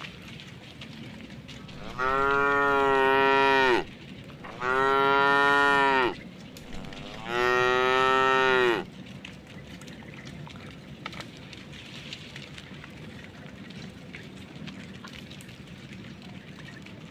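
A cow mooing three times in a row, each call a long, steady-pitched moo of about a second and a half, with short pauses between.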